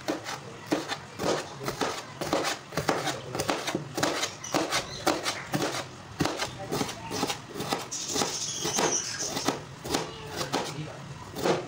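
Kitchen knife slicing vegetables on a wooden cutting board: irregular sharp taps, about two or three a second, as a green bell pepper is cut into strips and then cabbage is shredded.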